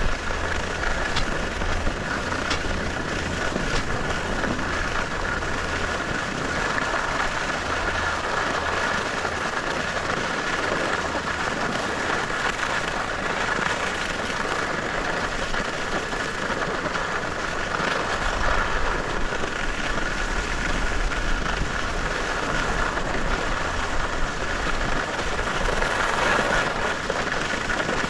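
Skis sliding over snow on a downhill run, a steady rushing noise with no break.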